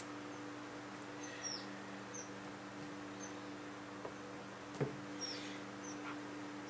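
Crimping and stripping pliers working on the extension cord's copper wires: faint small clicks and squeaks, with one sharper click a little before five seconds in, over a steady low hum.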